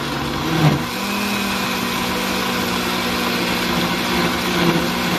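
Countertop blender motor running, blending a thick frozen-fruit smoothie. Its hum steps up in pitch a little under a second in, then runs steady.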